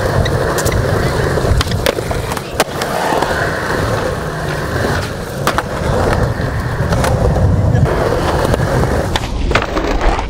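Skateboard wheels rolling over concrete with a steady rumble, broken now and then by sharp clacks of the board.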